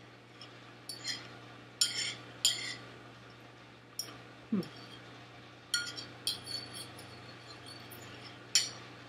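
Metal fork clinking and scraping against a ceramic plate: several light, irregularly spaced clinks while food is picked up off the plate.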